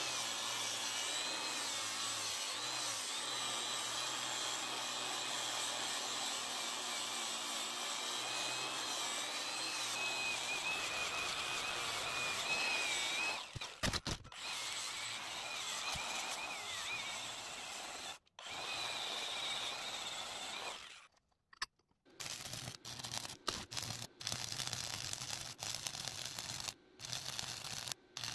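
Angle grinder running against the steel counterweight boxes, a steady grinding whine that wavers as it bears on the metal, with short breaks. Near the end it gives way to irregular stop-start crackling as a stick welder's arc is struck.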